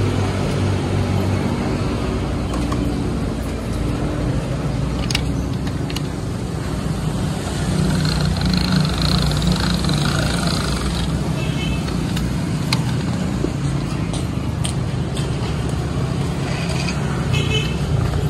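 A motor engine running steadily, a continuous low hum, with a few light clicks over it.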